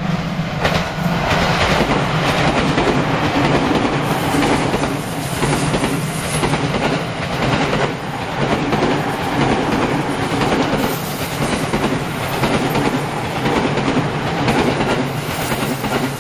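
A JR East E231-1000 series electric multiple unit, two sets coupled, passing close by over a level crossing. It makes a continuous running noise with a steady low hum, and the wheel clatter rises and falls in a regular rhythm.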